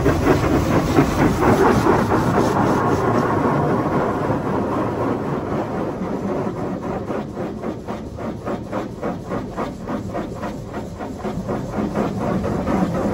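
High-pressure water jets of a HydroSpray Rainmaker touch-free car wash beating on the car's roof and windows, heard from inside the cabin. From about five seconds in the spray comes in a fast, even rhythm of about four beats a second.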